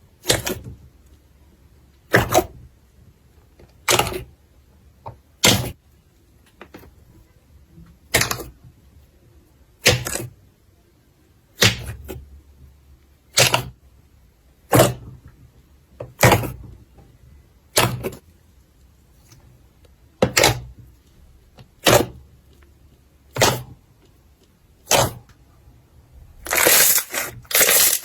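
Slime being pressed and squeezed by hand, giving short, sharp crackles about every second and a half, with a longer run of crackling near the end.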